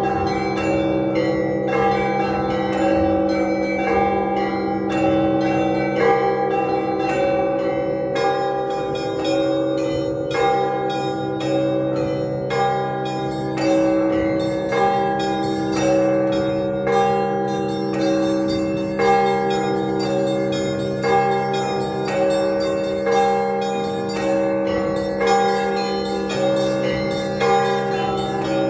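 Russian Orthodox church bells rung together, with many small bells struck in quick repeating patterns over the steady ring of deeper bells. A heavier stroke comes about once a second.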